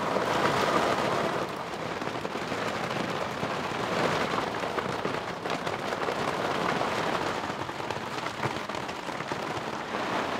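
Hail and heavy rain pelting a sailboat's deck, the dock and the harbour water: a dense, steady clatter of countless small hits, swelling and easing in gusts.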